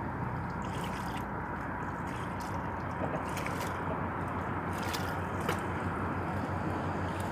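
Small waves lapping and sloshing against shore rocks over a steady wash of water, with a few light clicks scattered through.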